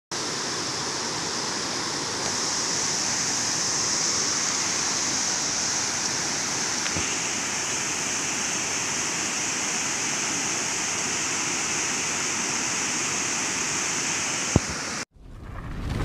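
Water pouring over a weir spillway and churning below it: a steady rushing noise. Near the end there is a sharp click, the water sound cuts off abruptly, and a low whoosh starts swelling up.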